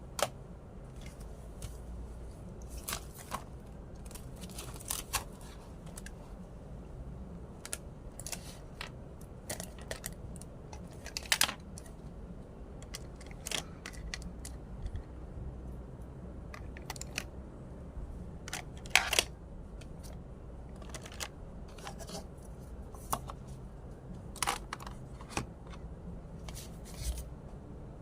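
Scattered clicks, taps and short rustles of objects being handled, irregular and a few seconds apart, over a low steady hum.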